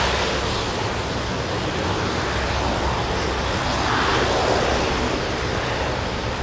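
A Lockheed C-130 Hercules's four Allison T56 turboprop engines running as the aircraft rolls along the runway. It is a steady, loud propeller drone that swells briefly about four seconds in.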